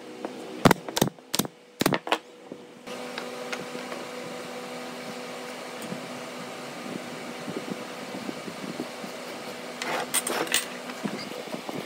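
Brad nail gun firing four sharp shots in quick succession into pine blocks. Then a steady mechanical hum with faint knocks, and a short run of clicks near the end.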